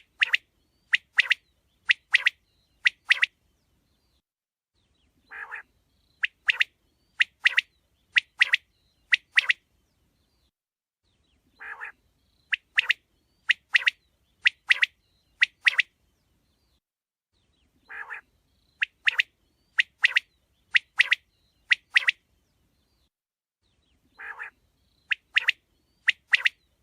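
Quail calling in a regular repeating phrase: a quieter low note, then about six sharp, loud chirps. The phrase comes back about every six seconds.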